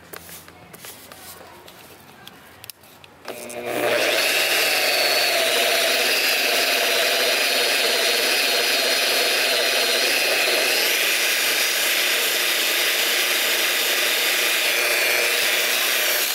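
Rotary polisher with a foam pad buffing a car's paint. The motor is quieter at first, then about three and a half seconds in it gets much louder and runs steadily with a whine.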